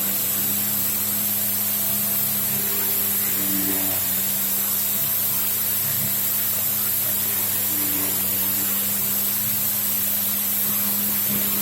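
Homemade CNC mill cutting a D16T (duralumin) aluminium part with a 14 mm end mill at 4000 rpm under coolant: a steady spindle hum with a constant hiss of cutting and coolant spray. A short higher tone recurs every four to five seconds.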